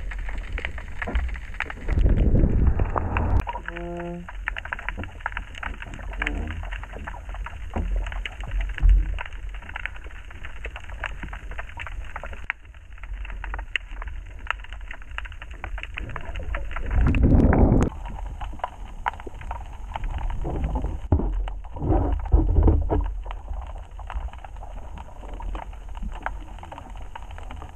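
Underwater sound picked up by a submerged camera: a steady low rumble of water with many scattered clicks and crackles. There are louder low whooshing surges about two seconds in and again around seventeen seconds, and a brief hum about four seconds in.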